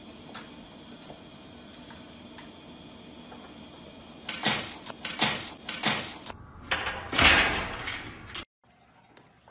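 A few loud sharp knocks in quick succession about halfway through, then a longer clattering scuffle that stops suddenly.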